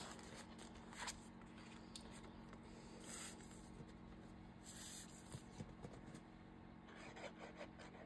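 Near silence with faint handling of paper: soft rubbing and scraping, a light click about a second in, and brief brushing sounds around three and five seconds in.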